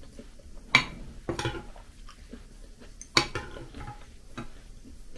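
Metal spoon clinking and scraping against a ceramic bowl of granola: three sharp clinks, the loudest just under a second in, another about half a second later and one about three seconds in, with smaller ticks between.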